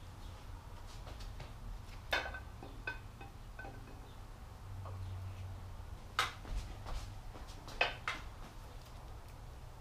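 Steel camshaft being slid into a Ford 429 big-block's cast-iron block, its lobes and journals clinking against the cam bearings and bores: scattered light metallic clinks that ring briefly, the loudest about two, six and eight seconds in.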